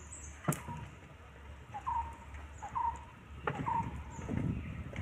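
A bird repeats a short falling call about once a second. Under it come a few sharp knocks and a brief low splashing as a gill net is hauled hand over hand into a wooden canoe.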